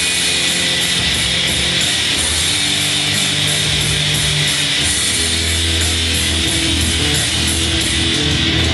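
Rock music with guitar, steady and loud, moving through held chords.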